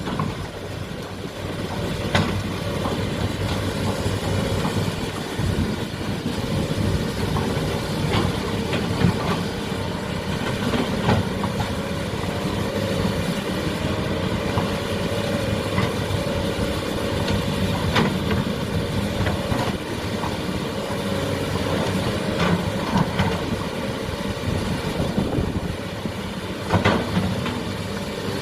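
Excavator's diesel engine running steadily while it levels soil, with a few sharp knocks from the machine working scattered through.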